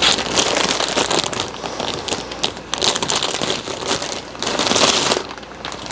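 Packaging crinkling and rustling as a package is opened, with dense crackles and louder bursts of rustling a few times.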